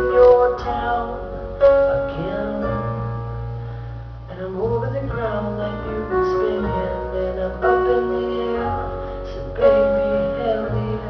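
Music with keyboard-like held notes over a steady low bass line, the notes changing every second or two.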